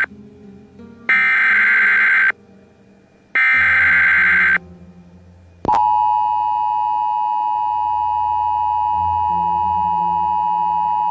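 Emergency Alert System tones for a tornado warning. First come the SAME data-header bursts: the end of one raspy, buzzing burst, then two more of about a second each, a second apart. A little past halfway, the steady two-tone EAS attention signal starts and holds, the alarm that announces an emergency message.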